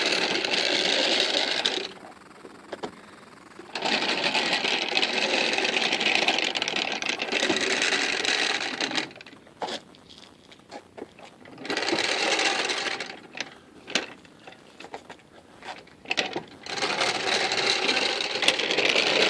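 Furniture dolly wheels rolling and rattling under a steel trailer axle as it is moved and turned over, in four runs of a few seconds with short pauses and scattered clicks between them.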